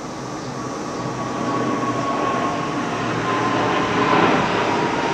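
Six Blue Angels F/A-18 Hornet jets flying over in formation: a steady jet roar that grows louder, with a high whine that slowly drops in pitch.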